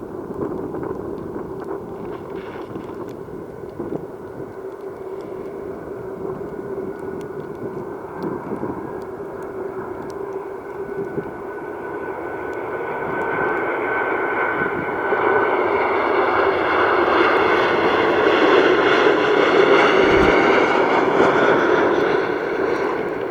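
Boeing 737-900ER's CFM56-7B jet engines on landing approach: a steady engine noise that grows louder through the second half, with a whine that peaks a few seconds before the end and then eases.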